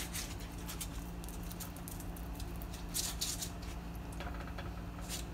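Plastic measuring spoon smearing barbecue sauce across a baked pizza crust: soft, faint scraping and dabbing strokes, a little louder about three seconds in.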